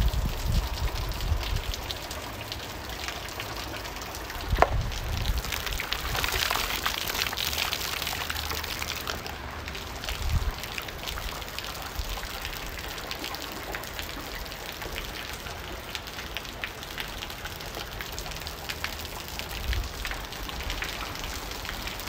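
Heavy rain pouring down and splashing on a wet surface: a dense, steady hiss of drops. Brief low rumbles come and go, near the start, about four and a half seconds in and about ten seconds in.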